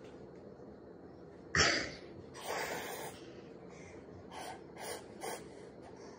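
A toddler blowing at a birthday candle: one sharp puff of breath about one and a half seconds in, the loudest sound, then several shorter, softer breathy puffs.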